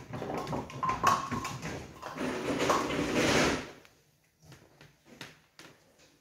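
Automatic pinsetter of a nine-pin bowling lane clearing the fallen pins and setting up a full set of nine. It makes a loud mechanical clatter that stops about three and a half seconds in, followed by a few faint ticks.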